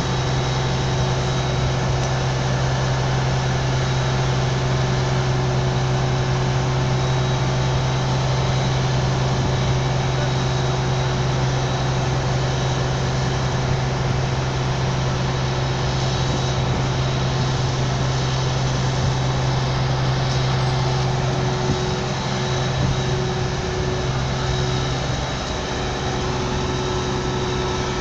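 Standing locomotives running at idle: a steady low drone with a fainter steady higher tone above it, unchanging throughout.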